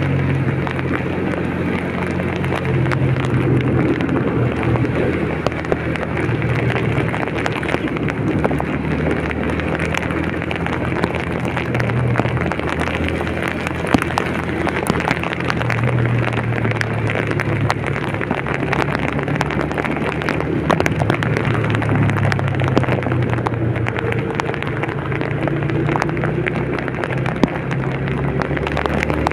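Heavy rain pattering with many sharp drop ticks, over the steady low hum of a vehicle's engine as it drives through the downpour.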